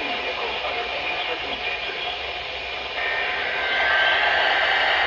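NOAA Weather Radio heard through heavy static hiss. About three seconds in, a louder, harsh buzzing data burst begins: the SAME digital header that opens the Required Weekly Test.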